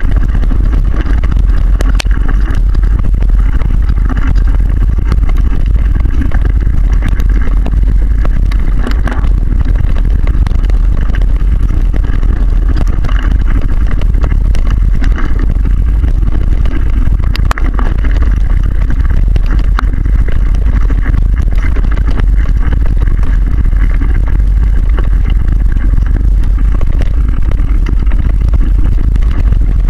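Wind buffeting and rumble on the microphone of a camera carried on a mountain bike riding a rough forest trail, steady and loud, with small knocks and rattles from the bumpy ground.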